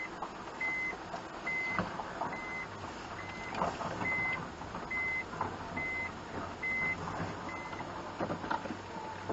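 A car's reverse-gear warning beeper sounding inside the cabin: a short high beep a little more than once a second, signalling the van is in reverse, which stops about eight seconds in. A few sharp knocks sound over it.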